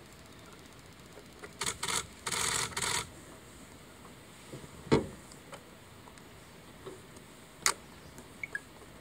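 Handling noise close to the microphone: a second and a half of rubbing and rustling, then a sharp knock about five seconds in and a single click near the end.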